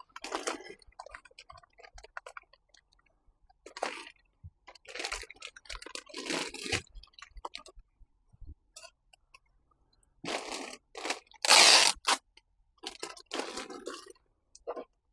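Plastic mailer bag and packing materials crinkling and rustling in irregular bursts as items are handled and packed, with one louder crinkle near the end.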